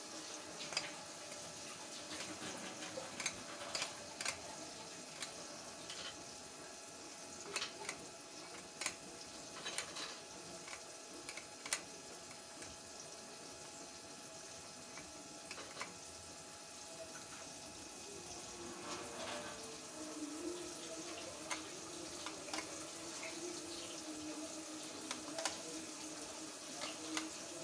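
Steady sizzling hiss of chicken tenders deep-frying in hot oil, with scattered sharp clicks and pops.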